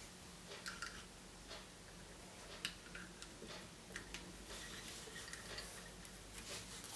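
Faint, irregular light clicks and taps of plastic surprise-egg capsules and wrapping being handled and opened.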